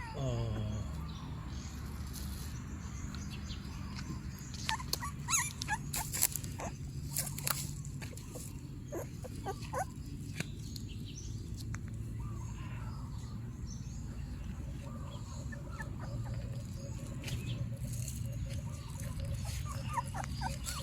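Dogs whimpering in short high cries among scattered clicks and rustles, over a steady low hum.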